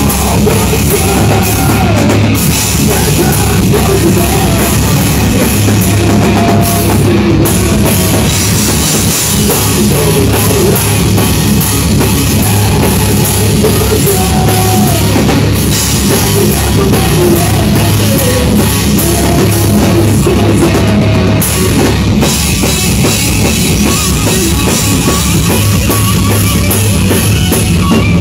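Stoner rock band playing live, a drum kit keeping the beat under the other instruments, loud and unbroken.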